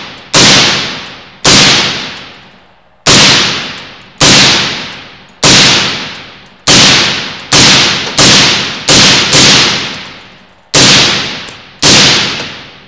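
Integrally suppressed semi-automatic AR-15 in 5.56 firing about a dozen single shots at a steady pace, roughly one a second, each shot trailing off in a long echo off the indoor range's walls.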